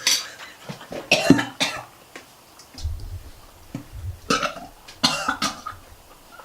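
A man making several short, burp-like throat noises as he gets down a mouthful of a foul-tasting food, with a dull low rumble about three seconds in.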